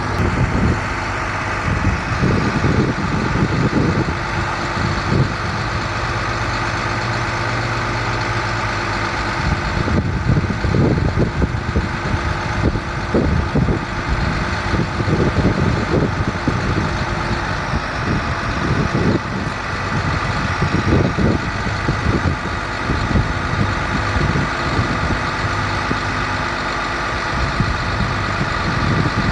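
International 4300 truck's diesel engine idling steadily, with irregular low rumbles coming and going over it.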